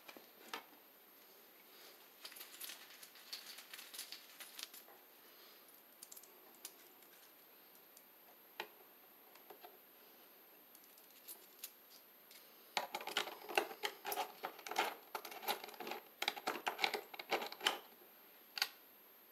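Small clicks, scrapes and rattles of stiff electrical wires being handled and a plastic wire nut twisted onto them at a plastic junction box. Scattered light ticks a few seconds in, then a denser run of clicking and rattling in the last third.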